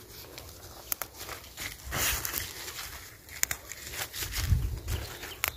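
Grape-vine leaves rustling and crinkling as they are handled and picked by hand, with a few sharp clicks.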